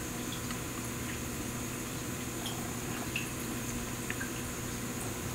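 Faint water sounds from a tadpole tank: scattered small drips or bubble pops over a steady low hum.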